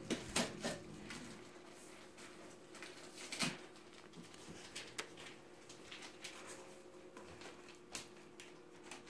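Cardboard gift box being opened by hand: light rustling, scraping and small clicks of the wrapped flaps, with one louder knock about three and a half seconds in.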